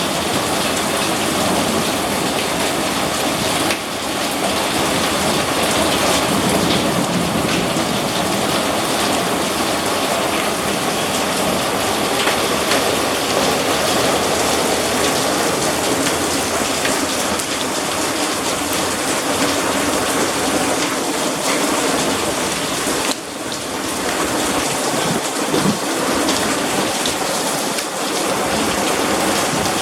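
Heavy storm rain pouring steadily and drumming on surfaces.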